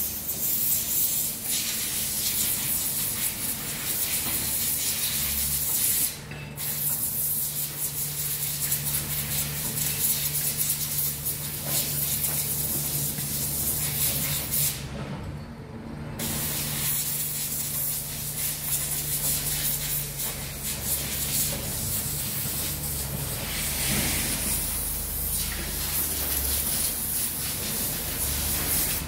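Komatsu PC240 hydraulic excavator's diesel engine running steadily while the boom and arm are worked, under a loud steady hiss that drops out briefly twice.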